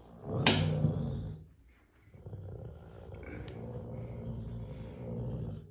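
Caracal giving a loud hissing spit about half a second in, then a continuous low rumbling growl while it holds its mat.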